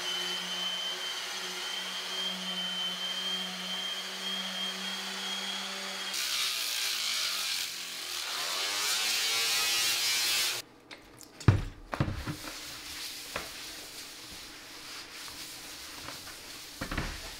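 DeWalt random orbital sander with 60-grit paper running on a laminate countertop, a steady hum with a high whine, roughing the surface. About six seconds in it gives way to a harsher, hissier grinding as an angle grinder with a coarse sanding disc works the laminate. Its sound stops abruptly about ten seconds in, leaving a quieter stretch with a few sharp knocks and a cloth rubbing over the countertop near the end.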